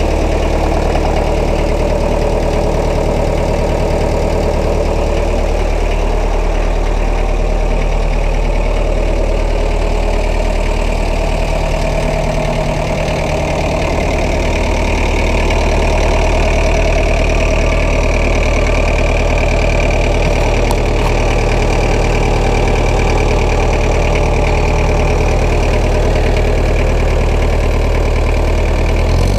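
McCormick International 432 tractor engine idling steadily.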